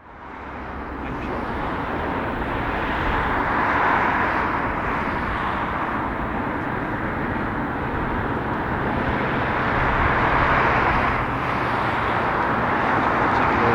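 Lockheed KC-130J Hercules's four Rolls-Royce AE 2100 turboprops and propellers droning on approach: a steady rumble with a low hum, building up over the first two seconds and swelling slightly twice.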